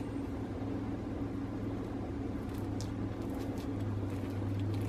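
Steady low hum in the room, with a few faint light clicks as a metal fork cuts into a stuffed potato on a ceramic plate.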